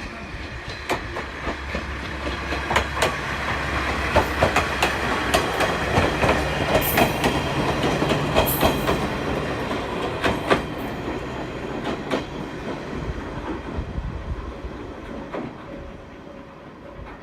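Aizu Railway two-car diesel railcar set (AT-351 and AT-401) passing on the line. Its engine hums steadily and its wheels click over the rail joints, building to a peak in the middle and fading as it moves away.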